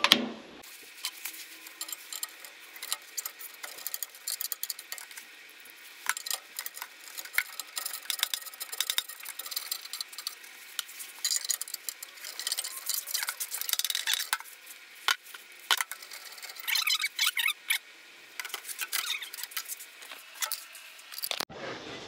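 A metal hand tool clinking, tapping and scraping against the sheet metal of a gas furnace's burner compartment while screws are loosened to remove the igniter bracket: irregular light clicks and scrapes.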